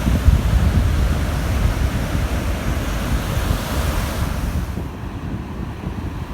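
Baltic Sea surf washing onto a sandy beach, with strong wind buffeting the microphone in a low, gusty rumble. The hiss of the surf dies away about four seconds in, while the wind rumble carries on.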